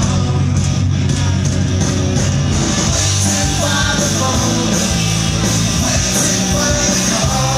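Rock band playing live, heard from within the crowd: loud electric guitars, bass and drums with sung vocals.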